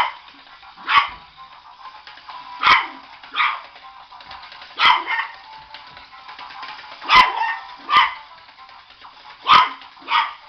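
Yorkshire terrier barking: about nine short, sharp barks at irregular intervals of roughly a second, over a faint steady background hum.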